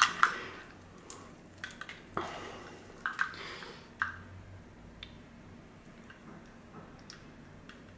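Plastic wiring-harness connectors clicking and knocking as they are handled, a handful of sharp clicks in the first four seconds with a brief rustle about two seconds in, then only faint ticks.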